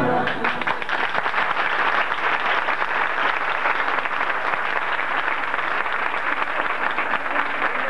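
Audience applauding steadily as a piece of music ends.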